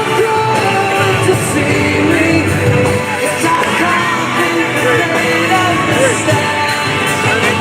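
Music with a singing voice over instruments, playing steadily.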